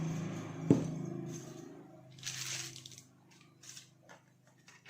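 A sharp knock, then soft rustling and squeezing as coconut macaroon batter is piped from a plastic piping bag into paper cupcake liners. A low steady hum fades out over the first two seconds.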